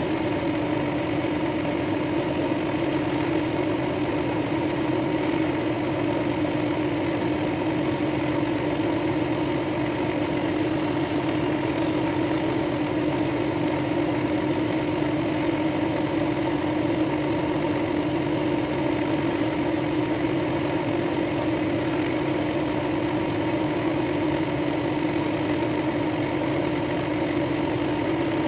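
Drill press motor running steadily, spinning a dark-wood ring with a brass centre on a mandrel while 400-grit sandpaper is held against it to sand out scratches. The hum is even throughout.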